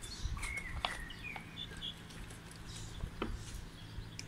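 Quiet background with a few short, high bird chirps and scattered light clicks and taps over a steady low hum.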